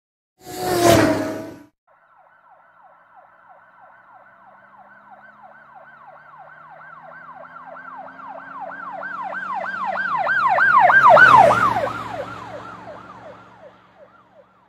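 Emergency-vehicle siren in a fast yelp, about three quick falling sweeps a second. It grows steadily louder to a peak well past the middle, then fades away, like a vehicle passing, with its engine note dropping at the loudest point. A short loud burst of sound comes about a second in, before the siren starts.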